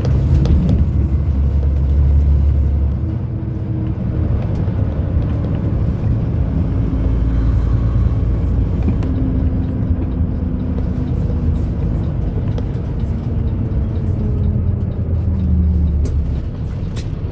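Heavy truck driving on the road, heard from inside the cab: a steady low engine and road rumble.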